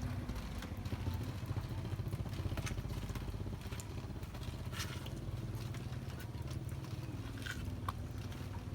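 Small motorcycle engine running steadily at low revs, with a few scattered sharp ticks.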